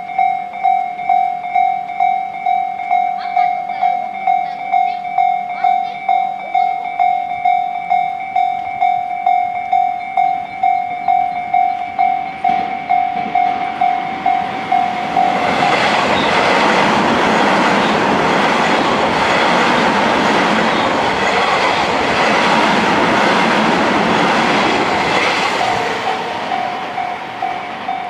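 Japanese level-crossing warning bell ringing steadily at nearly two dings a second. About halfway through, a Tobu 50070 series electric train passes over the crossing, and the noise of its wheels on the rails drowns out the bell for about ten seconds. The bell is heard again near the end.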